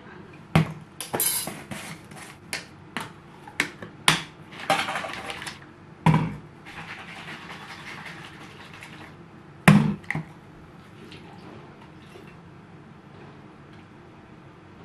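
Plastic bottle and powder tub handled on a stone kitchen counter while powder is mixed into water: a run of clicks, taps and knocks from lids and scoop, then water sloshing as the plastic bottle is shaken, and one loud knock about ten seconds in.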